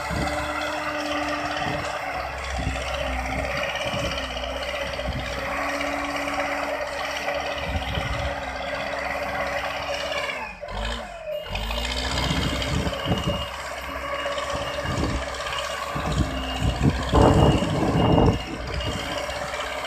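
JCB 3DX backhoe loader's diesel engine running while the machine works, with clattering and scraping of the bucket and loader on earth and stone, loudest in a burst of clatter near the end. A reversing alarm beeps steadily over the second half, and the sound briefly drops out about halfway through.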